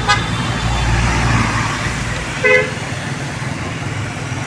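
Street traffic: a vehicle horn gives a brief toot right at the start and another short toot about two and a half seconds in, over steady engine and road noise, with a low rumble of a vehicle passing about a second in.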